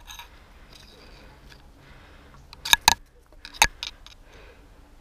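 Three short, sharp clicks or cracks over faint outdoor background: two close together about two and a half seconds in, and one more a second later.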